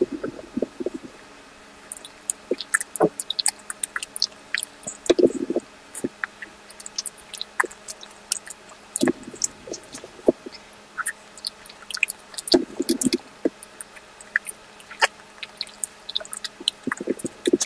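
Close-miked mouth sounds of someone eating ice cream: many short, wet clicks and smacks scattered throughout, with a few longer, lower mouth sounds in between.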